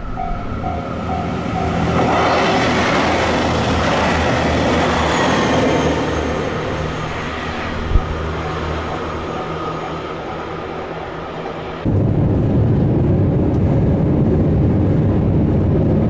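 Running noise of a limited express diesel railcar heard from inside the passenger cabin: a steady rumble with track noise that swells for a few seconds. There is a single sharp knock about eight seconds in, and about twelve seconds in the sound cuts abruptly to a louder, deeper rumble.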